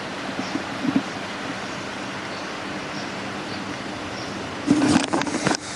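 Steady rush of wind and water with a faint low hum under it. Near the end it turns louder and choppy, like wind buffeting the microphone.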